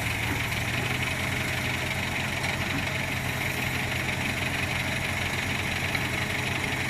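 Diesel engine of heavy machinery idling steadily, with no revving or change in speed.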